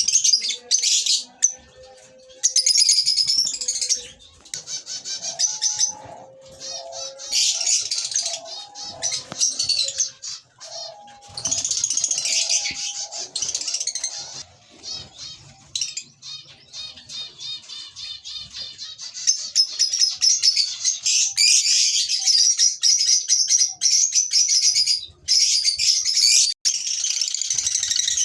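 A flock of lovebirds chattering, a dense mass of shrill chirps and squeaks that swells and drops back in bursts.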